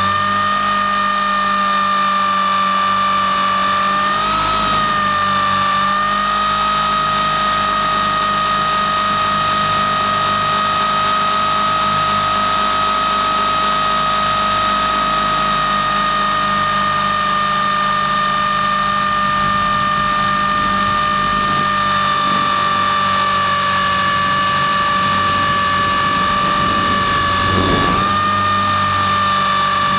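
Electric 450-size RC helicopter in flight, heard from on board: a steady, high whine from the brushless motor and gears over the rotor's hum. The pitch wavers briefly about four seconds in and again near the end.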